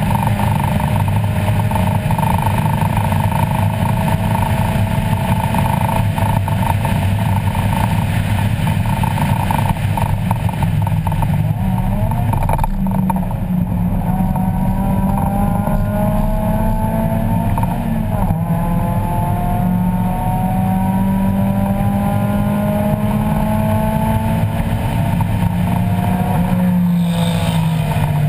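1994 Mazda Miata's 1.8-litre four-cylinder engine, loud inside the stripped race cabin, running hard on track with its pitch climbing under acceleration, dipping briefly twice, about 12 and 18 seconds in, and breaking off again near the end.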